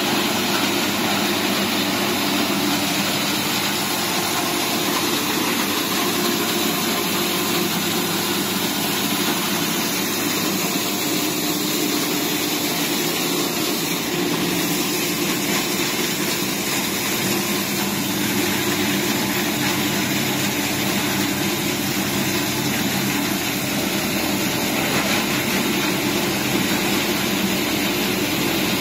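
Machinery of a PET bottle recycling and washing line running: a steady, unchanging mechanical drone from the motor-driven crusher, conveyors and wash tank.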